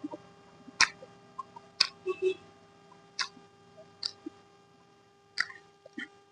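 Close-up eating sounds: sharp wet mouth clicks and smacks from chewing, about one a second.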